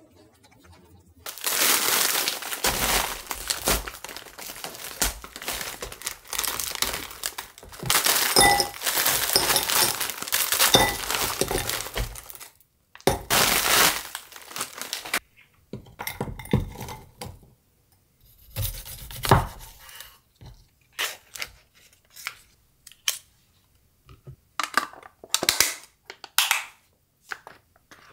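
Plastic bag of frozen mixed vegetables crinkling as it is handled, with frozen broccoli and carrot pieces clattering into a glass bowl. In the second half the sound gives way to scattered quieter rustles and taps as a plastic tube of soft tofu is handled on a wooden cutting board.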